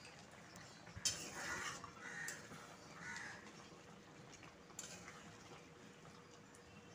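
Flat spatula stirring chicken pieces in gravy in a metal kadai: a sharp knock against the pan about a second in, a few wet scraping strokes over the next two seconds, and another lighter knock near five seconds.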